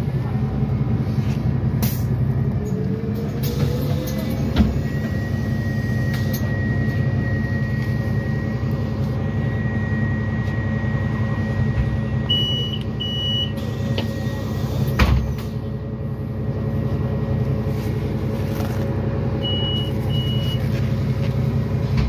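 Interior of a Solaris Urbino 12 III city bus: the engine runs steadily as the bus draws up and stands at a stop. Two pairs of short high beeps, typical of the door signal, sound twice, and a sharp pneumatic hiss comes about 15 seconds in.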